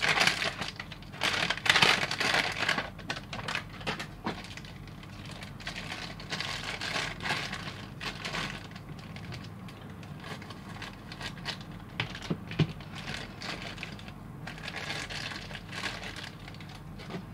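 Plastic packaging bags crinkling and rustling as a small vinyl figurine and its parts are unwrapped by hand. The rustling is loudest in the first few seconds and lighter after, with a couple of sharp clicks.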